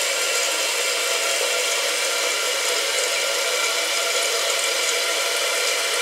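Fluidmaster 400A fill valve refilling a toilet tank after a flush: a steady hiss of water running through the valve into the tank.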